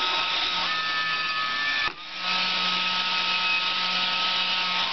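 Salvaged hair-dryer motor and fan running on 12 volts from a car lighter socket: a steady whir of rushing air with a thin motor whine. It drops briefly about two seconds in, then comes straight back up.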